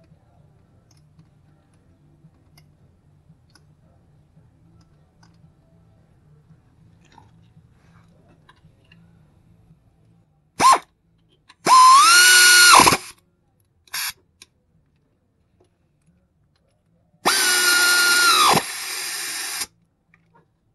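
Pneumatic air ratchet driving the AC compressor's mounting bolts. After about ten seconds of faint handling noise come a brief blip and then two runs of a bit over a second each. In each run the air motor's whine spins up, holds steady and winds down, with another short blip between the runs.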